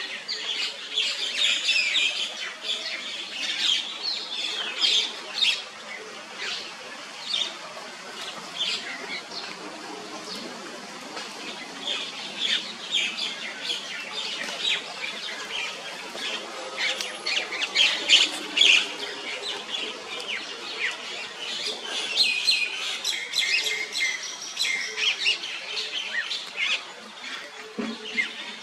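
Birds chirping and calling, many short overlapping calls going on throughout.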